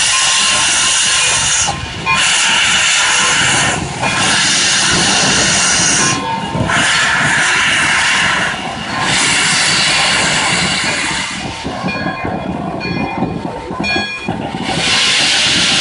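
Pere Marquette 1225, a Berkshire steam locomotive, venting steam from its cylinders as it moves off slowly: loud hissing blasts of about two seconds each, with short breaks between them that come a little further apart. The hiss eases for a few seconds, then one more blast comes near the end.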